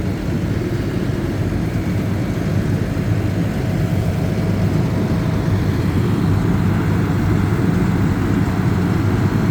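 Fire trucks' diesel engines idling: a steady low rumble that grows slightly louder toward the end, with a faint steady whine joining about four seconds in.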